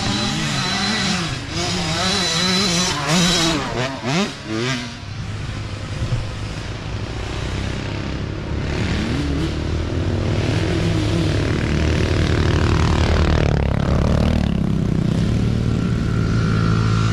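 Small dirt bike engines revving up and down over and over for the first few seconds, then quieter. From about twelve seconds in, an engine grows louder as a mini dirt bike comes closer, settling into a steady drone near the end.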